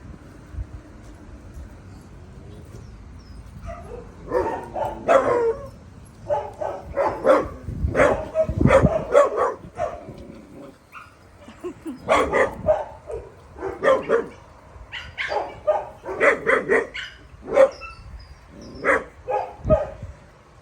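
Small dogs barking in quick, repeated volleys, starting about four seconds in, as if scolding bigger dogs.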